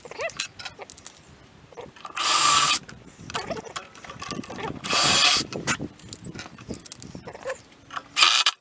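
A power drill run in three short bursts of about half a second each, with clicks and knocks of parts being handled in between.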